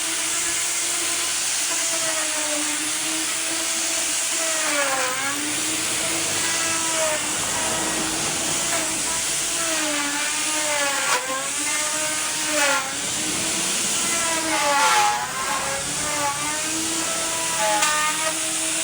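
Electric woodworking power tool running steadily with a high hiss. Its motor hum sags in pitch several times and recovers, as it slows while cutting into the wood and speeds up again.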